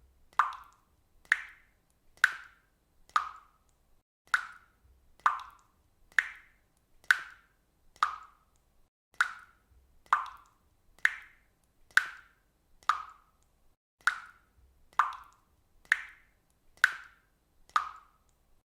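Water dripping into water: single drops plopping at a steady pace of about one a second, each a short, bright plop with a quick rising ring.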